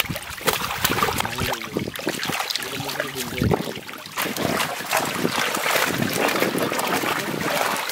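Water splashing and sloshing as fish crowded in a seine net thrash at the surface and men wade and handle them, with irregular splashes and drips throughout.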